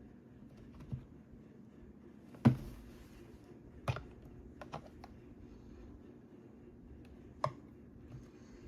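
Scattered sharp clicks and knocks, about half a dozen, the loudest about two and a half seconds in, over a faint steady hum.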